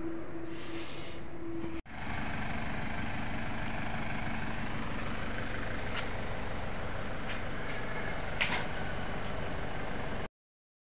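An engine running steadily. There is a brief break about two seconds in and a short sharp knock a little after eight seconds, and the sound stops suddenly near the end.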